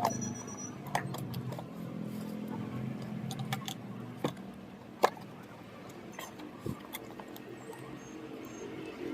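Handling sounds of a power tool being unboxed: scattered clicks and taps of packaging being handled, over a low background hum that fades about four seconds in.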